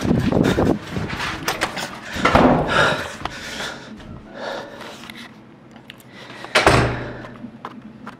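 Knocks, clicks and rustling from a camera being handled and moved, with one heavier thump about six and a half seconds in.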